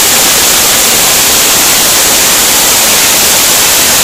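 Loud, steady rushing of a waterfall close to the microphone.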